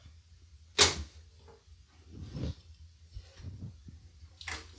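Hard plastic computer case parts being handled and set down: a sharp clack about a second in, a duller knock a little past two seconds, and another clack near the end, over a low steady hum.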